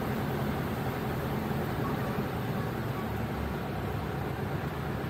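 Car engine and road noise heard from inside the cabin as the car drives slowly: a steady low hum.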